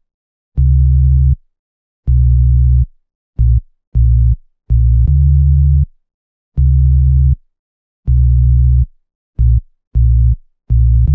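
Hip hop beat intro: deep synthesizer bass notes in a halting rhythm, about ten of them, some short and some held under a second, with silence between and a slight click at the start of each.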